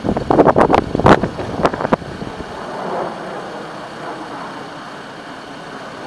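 2014 Case 580SN backhoe loader's diesel engine running while the backhoe arm is worked: loud, uneven bursts over the first two seconds, then a steadier, quieter running sound.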